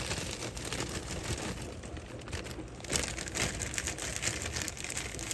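Plastic bag of mini marshmallows crinkling and rustling as it is shaken out into a pot, with a burst of louder rustling about two seconds in.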